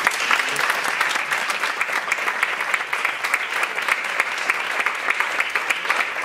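Audience applauding: dense clapping that breaks out suddenly and keeps up steadily.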